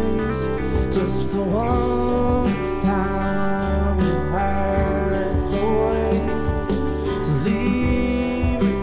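Live Americana band playing: acoustic and electric guitars, keyboard, bass and drums, with a steady drum beat under a melody line of sliding, bending notes.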